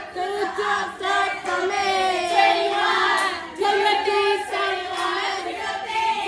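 A group of voices singing together in chorus, a festive party song, with a few claps.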